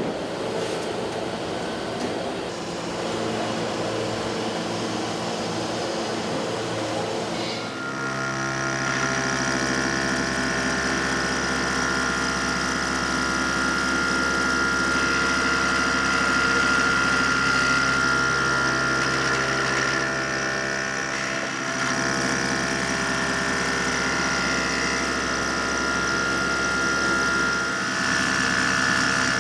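Doosan Puma 3100ULY CNC lathe running with a steady mechanical whine made of several held tones. About eight seconds in the sound grows fuller, with a low hum and more tones coming in, and then stays steady.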